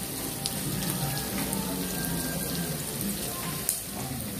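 Pork pieces, garlic and onion sizzling in hot oil in a wok, with a few small pops of spattering oil, one a little louder near the end.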